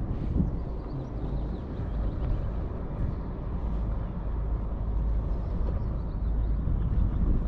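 Wind buffeting the microphone: a low, uneven rumble that swells and dips.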